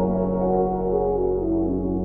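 Ambient background music: a low, steady drone with slow, sustained tones shifting above it.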